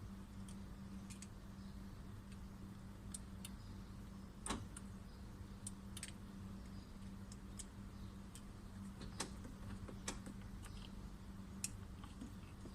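Faint, scattered small clicks and taps from hands working a car door-lock wiring connector and test light, the loudest about halfway through, over a steady low hum.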